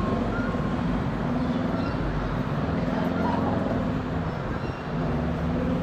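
Boeing 777-300ER's GE90 jet engines heard from the ground as a steady low rumble while the airliner climbs away after takeoff.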